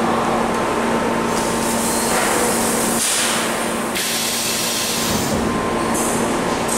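Bodor T6A tube laser cutting machine running with a steady hum, and bursts of hissing from about one and a half to four seconds in and again near the end.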